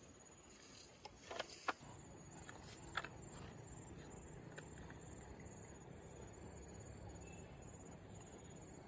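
Faint insects chirping: a steady high-pitched buzz with a quicker pulsing trill under it, coming in about two seconds in. Before that come a few sharp clicks.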